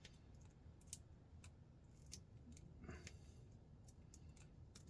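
Near silence with a few faint, sharp clicks of pliers working a hot-water-softened RJ45 plug, bending the plastic to free its gold-plated pins.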